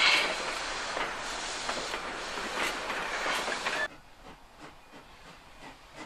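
Passenger carriages of a narrow-gauge steam train rolling past close by, their wheels clattering over the rail joints. About four seconds in the sound drops suddenly to the faint, distant beats of a steam locomotive approaching through a cutting.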